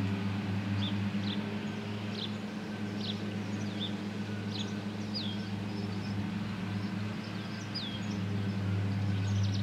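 A steady low machine hum runs throughout, with a small bird chirping over it: short high notes repeated every half second or so, a couple of them sliding downward.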